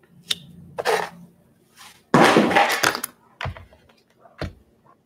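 Trading cards and a cardboard pack box being handled by hand: a click and a short rustle, then a louder scraping slide lasting about a second, then two soft thumps on the box.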